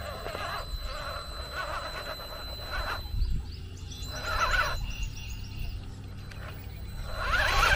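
1/10-scale Injora RC rock buggy's electric motor and gear train whining as it crawls up rock, the pitch wavering with the throttle. The whine swells louder about four seconds in and again near the end.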